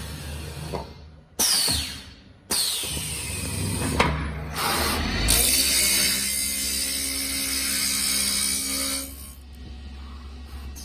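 Automatic-feed wood lathe turning a square wooden blank round, its knife cutting the spinning wood. The cutting comes in short bursts about a second and a half in, runs loud and steady from about two and a half seconds until near nine seconds, then drops to the quieter sound of the machine running.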